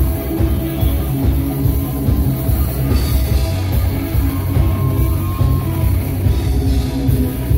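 Rock band playing loud and live: drum kit, electric guitars and bass, with the bass and kick drum heaviest.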